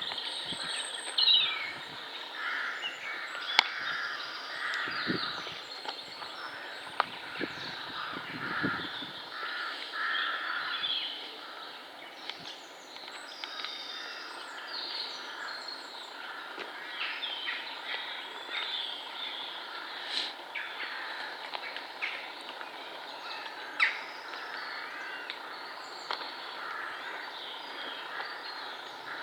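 Chorus of woodland birds singing and calling over one another, many short overlapping calls and phrases, with a few low thumps in the first nine seconds.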